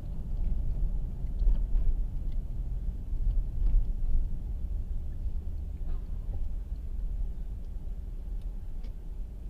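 Low, steady rumble of a car's road and engine noise heard inside the moving cabin.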